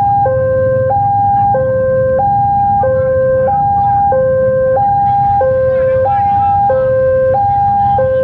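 Railway level-crossing warning alarm sounding a steady two-tone electronic 'ding-dong', switching between a lower and a higher tone about every two-thirds of a second, the signal that a train is approaching the crossing.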